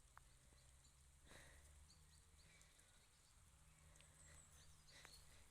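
Near silence: faint outdoor background with a low steady hum and a few soft clicks.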